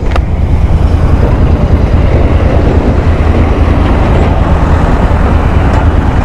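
Royal Enfield Interceptor 650's parallel-twin engine running steadily on the move, under a loud, steady rush of wind and road noise.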